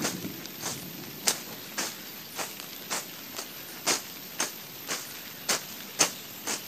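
A hand blade slicing through grass and weeds in quick, regular strokes, about two a second, each a short sharp swish. A few strokes land louder than the rest.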